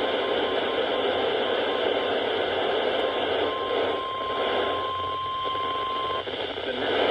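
Weather radio receiver hissing with heavy static. Through it comes the steady 1050 Hz NOAA Weather Radio warning alarm tone: it breaks up at the start, comes through for about three seconds in the middle, then cuts off. The alert is being received poorly and not relayed cleanly.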